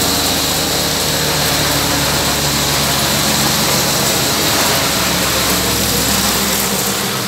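Machine driven by an electric motor and belt running steadily: a loud, even mechanical noise with a high hiss over a low hum.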